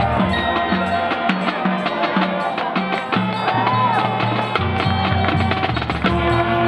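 Marching band playing its field show: sustained horn chords over drums and mallet percussion, with a steady beat of about two strokes a second.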